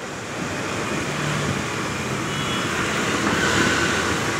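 Steady road traffic noise, an even rushing hum that grows slightly louder over the few seconds.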